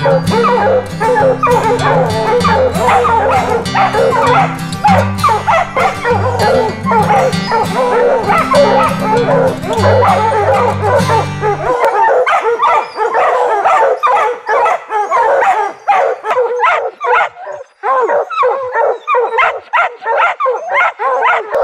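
Hunting hounds barking and baying up at a black bear treed above them, the rapid barks overlapping with no break. Background music with a deep bass line plays under the barking and stops abruptly about halfway through.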